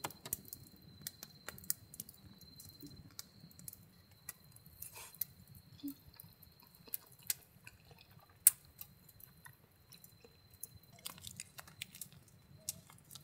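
Close eating and handling sounds: metal tongs clicking against a plastic tray of raw salmon, chewing, and near the end a tube of wasabi sauce being squeezed. Scattered sharp clicks and taps run throughout, the loudest about eight and a half seconds in.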